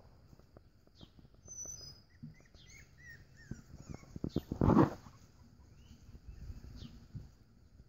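Young puppies whimpering and squeaking while they scuffle around a metal feeding pan, with many small clicks and knocks. A louder burst comes about four and a half seconds in. Birds chirp faintly.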